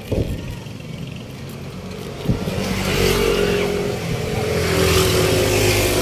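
A motor vehicle's engine running close by, getting louder from about two and a half seconds in and loudest near the end. A sharp click comes just before it builds.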